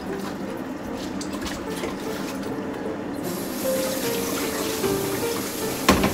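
Kitchen tap running into a sink, the flow getting stronger about three seconds in, with a sharp clatter near the end.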